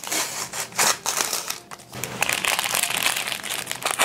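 Plastic film wrapper of a convenience-store sandwich crinkling as it is pulled open by hand, the crackling densest in the second half.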